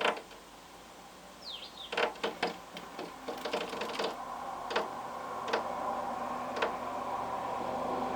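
A small bird pecking at window glass: irregular sharp taps, bunched most closely about three to four seconds in, with one short falling chirp just before them. A steady hum grows slowly underneath from about three seconds in.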